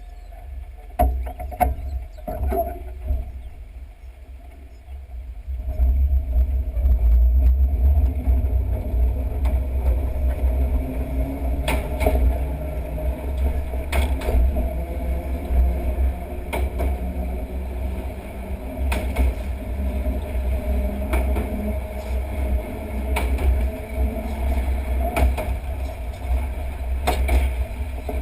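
Island Line electric train running along the track, heard from outside the train: a heavy steady low rumble that gets louder a few seconds in, with a wheel knock about every two seconds, typical of wheels passing over rail joints.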